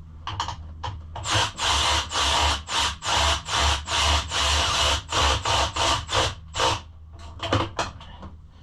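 Ratchet wrench with a short 10 mm socket being worked back and forth to run down a bolt on the bike's plastics. It gives a rapid run of ratcheting strokes, about three a second, from about a second in until near the end.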